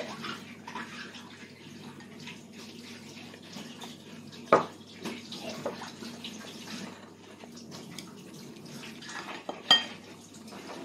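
Steady hiss of water running from a tap, with two sharp clinks of tableware, one midway and one near the end that rings briefly.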